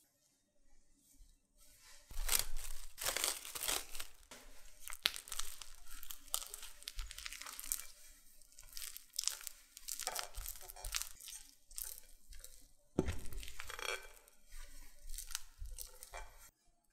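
Silicone spatula stirring and folding hot, sticky glutinous rice and persimmon dough, just cooked through in the microwave, in a glass bowl: wet, tacky squelching and scraping that starts about two seconds in. A sharper knock comes about thirteen seconds in.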